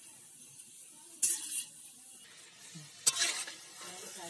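Wheat-flour bondas deep-frying in hot oil, a steady sizzle, with a slotted metal spatula scraping against the metal pan twice, about a second in and about three seconds in.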